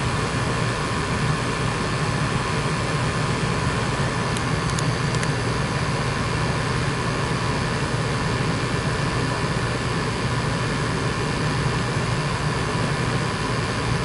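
Natural-gas furnace running in heat mode: a steady, even drone of its blower and draft inducer motor, with a low hum and no change.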